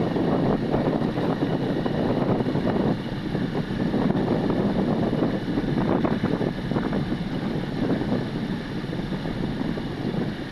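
Godrej top-load fully automatic washing machine running, a steady rough churning noise that rises and falls a little.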